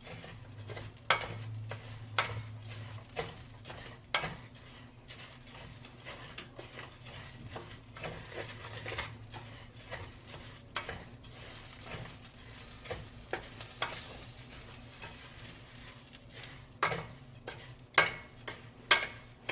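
Rice and onions sizzling in oil in a pot, stirred with a utensil that scrapes and knocks against the pan at irregular moments, with a few louder knocks about a second in and near the end.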